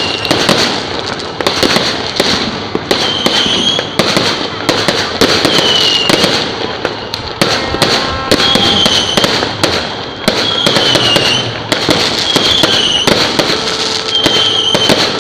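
Aerial fireworks display bursting in a rapid, continuous run of loud bangs and crackle. A short high tone recurs about every second and a half over the bangs.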